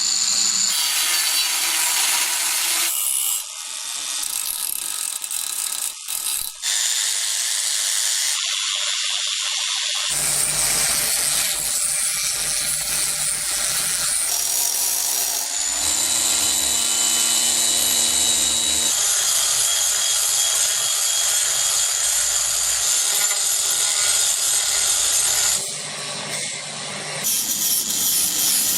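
Small Proxxon cordless angle polisher running and working against a surface, with a high motor whine and abrasive rubbing, in several short segments that change abruptly every few seconds.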